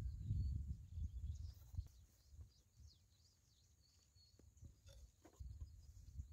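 Faint birds chirping, with a low rumble in about the first two seconds and a few light clicks near the end.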